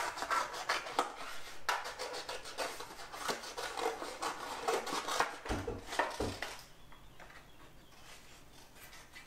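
Scissors snipping through coloured paper in quick repeated cuts, with the paper rustling. About five and a half seconds in there are two dull thumps, then the sound drops to faint handling of paper.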